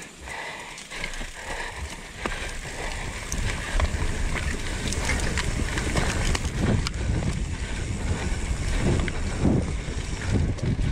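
Downhill mountain bike rolling fast down a dirt trail: tyres rumbling over the ground with many small clicks and rattles from the bike. It grows louder about two to four seconds in as the speed picks up.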